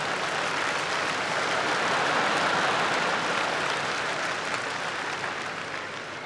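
Large audience applauding, swelling a little and then dying away toward the end.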